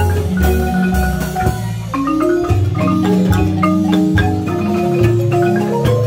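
Large Guatemalan marimba played by several players at once with mallets: a lively melody of struck notes, with held notes rolled by rapid mallet strokes over sustained low bass notes.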